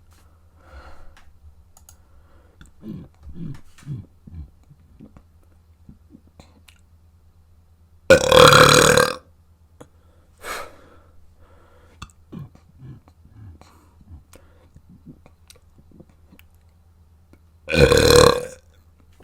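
A person burping loudly twice, about eight seconds in and again near the end, each burp lasting about a second. Fainter short sounds come in the gaps between the burps.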